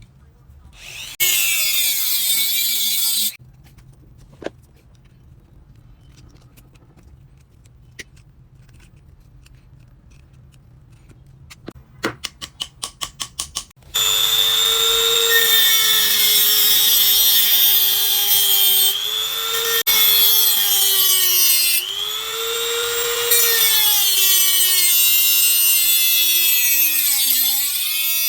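A small electric power tool runs for about two seconds and winds down with a falling whine. After a quick run of clicks, it runs again steadily for the rest, its motor whine dipping in pitch several times as it is loaded while it cuts.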